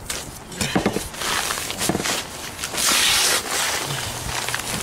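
Dry Quikrete Mason Mix Type S pouring from a slit paper bag into a wheelbarrow: a rushing hiss that is loudest about three seconds in. A few scrapes and rustles of the bag come before it.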